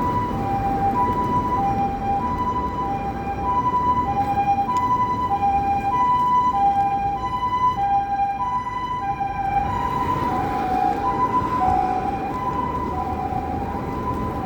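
Ambulance siren sounding a steady high-low two-tone call, the two notes alternating about once a second, over a steady low rush of road and rain noise.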